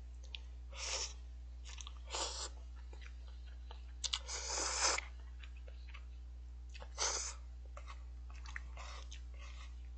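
A man eating instant cup ramen close to the microphone: short bursts of slurping and chewing every second or two, with a longer slurp of noodles about four seconds in.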